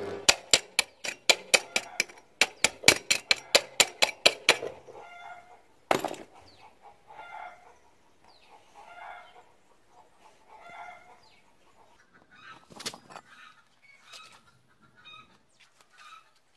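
Rapid sharp taps of a chipping hammer on a fresh stick-weld bead, knocking off the slag, about four or five a second for the first four and a half seconds. After that a hen clucks on and off, with two single knocks.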